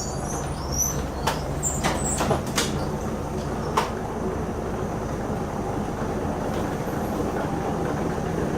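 Boat engine idling steadily with a low hum, with several sharp knocks in the first four seconds.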